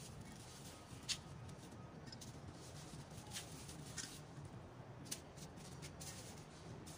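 Faint scraping of a metal spoon scooping gel out of an aloe vera leaf, with a few short scratches and clicks scattered through.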